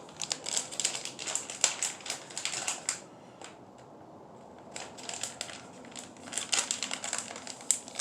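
Plastic bait packaging being handled, rustling and crinkling with quick clicks, in two spells with a brief lull in the middle.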